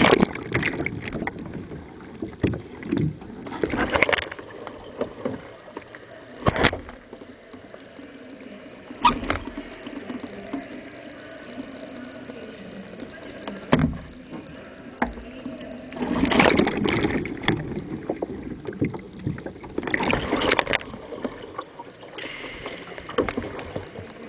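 Water splashing and sloshing around a kayak in an indoor pool as it is heeled over and paddled, with a loud splash at the start and irregular further splashes of paddle strokes every few seconds.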